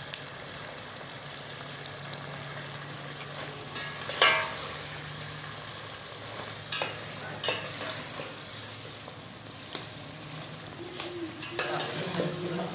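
Thick karahi curry simmering and sizzling in a steel pot, stirred with a slotted metal ladle that scrapes and clinks against the pot several times, loudest about four seconds in.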